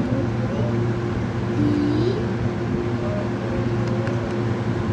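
Steady low mechanical hum with a constant tone, and faint background voices.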